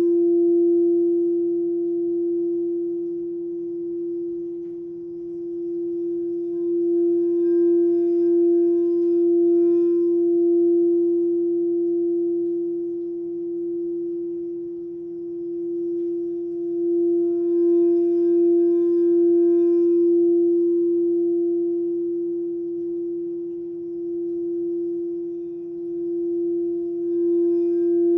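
Frosted crystal singing bowl played by circling its rim with a mallet: one steady, sustained note with shimmering overtones that slowly swells and fades, about every ten seconds.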